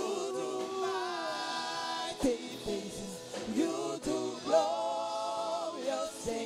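Gospel worship chorus sung by a man leading with women backing singers. The voices hold long notes, with short breaks between phrases.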